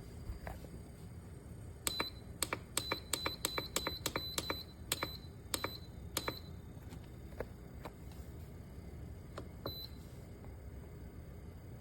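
Buttons on the EENOUR D18 car fridge's control panel being pressed in quick succession: about a dozen clicks, most with a short high beep, then one more beep near the end.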